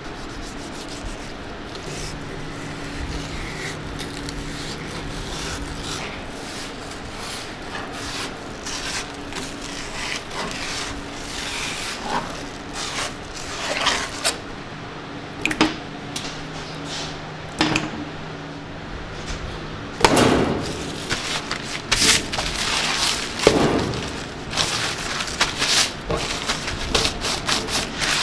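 Long slicing knife scraping and sliding against a plastic cutting board as a raw salmon fillet is trimmed and skinned, in repeated short rasping strokes. A low hum comes and goes underneath, and louder scrapes and handling noises come in the second half.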